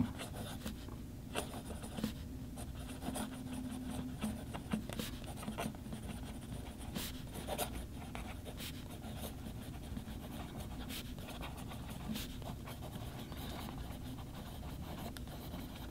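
Sheaffer Touchdown fountain pen's Triumph nib scratching softly across paper as a sentence is written, in a run of short, faint strokes. The nib's tines are slightly misaligned, giving a little scratchiness.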